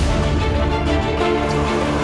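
Background music with a steady beat and sustained tones.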